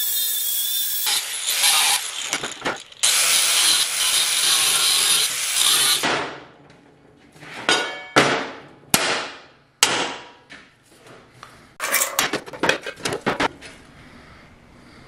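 A DeWalt angle grinder with a cut-off wheel cutting through square steel tubing, a loud steady hiss that stops about six seconds in as the wheel winds down. After it come a few sharp metallic knocks of a hammer on the steel tube, with a quick run of strikes near the end.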